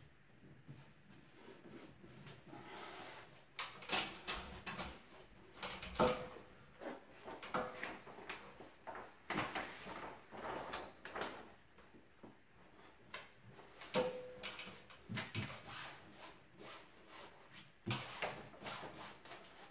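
Self-adhesive wallpaper and its backing paper rustling and crackling as the paper is pressed and smoothed onto a ceiling, with irregular scraping strokes and a few short squeaks, starting a few seconds in.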